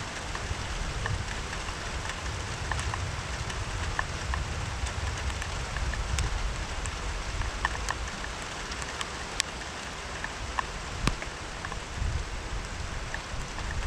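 Steady rainfall with scattered drops ticking sharply on a nearby surface, a couple of louder drops near the end, over a low rumble.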